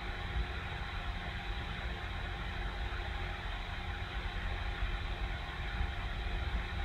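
Steady low hum with an even hiss of room tone and a few faint steady tones, unchanging throughout, with no distinct events.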